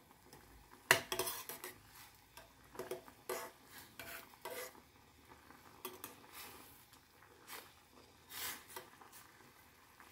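Metal ladle scraping and clinking against a stainless steel saucepan while noodles are stirred in boiling broth. A handful of separate knocks and scrapes, the loudest about a second in.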